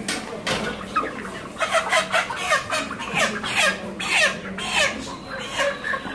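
A pen of white broiler chickens clucking and squawking as one is grabbed and lifted by its legs. Short, falling calls come thick and loud from about a second and a half in.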